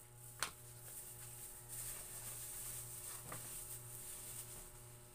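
A thin plastic bag is handled close to the microphone, giving a soft crinkly hiss. A sharp click comes about half a second in and a fainter tap about three seconds in, over a low steady hum.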